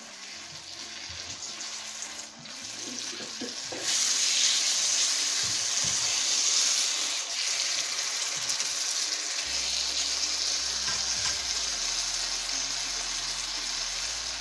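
Sliced onions sizzling in oil and tomato masala in a nonstick wok while a spatula stirs them. The sizzle grows louder about four seconds in and then stays steady.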